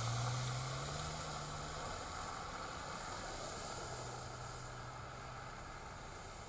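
SUV driving through shallow floodwater on a road: a low engine hum with a steady hiss of water spraying from the tyres, fading as the vehicle pulls away.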